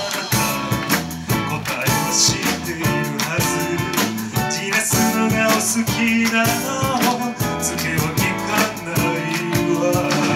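Live band playing a Japanese mood kayō (lounge-pop) song, with drums and electric guitar under a male lead singer.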